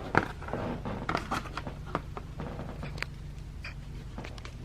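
Handling noise from a boxed toy's packaging: scattered light clicks, taps and scrapes over a low steady hum.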